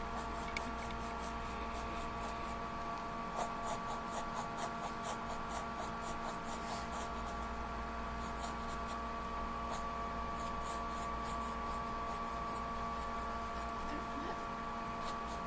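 Mechanical pencil scratching on sketchbook paper in quick, repeated shading strokes.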